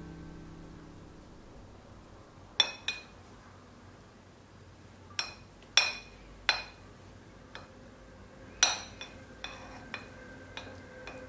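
A metal spoon clinking against a ceramic baking dish while spreading cream: about six sharp, ringing clinks at irregular intervals, then several softer taps near the end.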